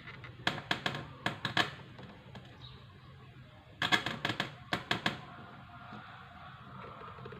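Two bursts of rapid crackling clicks from a speaker driven by an amplifier board under test, about half a second in and again near four seconds in, each lasting a bit over a second, over a steady low hum. Touching the amplifier's audio input by hand produces the sound, the sign that the amplifier is working.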